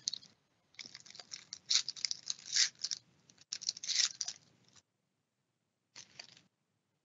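Foil wrapper of a hockey-card pack crinkling as it is torn open by hand: quick, uneven bursts of crackle for about four seconds, then a short rustle near the end.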